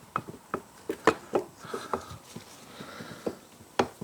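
Irregular clicks and knocks, with a few louder clunks, from a 1990 Kawasaki ZZR1100 starter motor being worked into its mounting in the engine casing.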